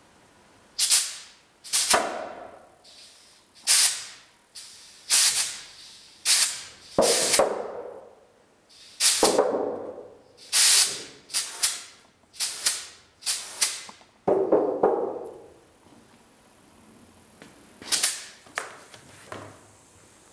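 Repeated short, sharp puffs of compressed air hissing through a hose valve into the inflatable membrane leg of a pneumatic sculpture. There are about sixteen irregularly spaced puffs, each dying away quickly, with a pause of a few seconds before the last two.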